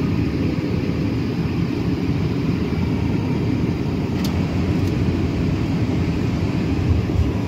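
Wind buffeting the microphone: a steady low rumble with no break.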